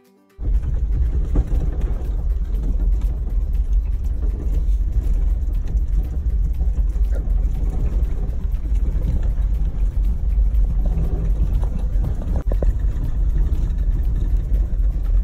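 Vehicle driving along a rough dirt trail, heard from inside the cab: a steady, loud low rumble of engine and road noise with small knocks and rattles. It cuts in abruptly just under half a second in.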